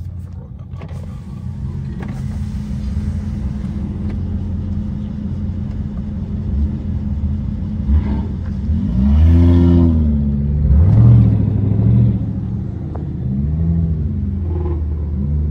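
Muscle-car engines running, heard from inside a car's cabin: a steady low idle rumble, with a few revs rising and falling a little past the middle, the loudest part.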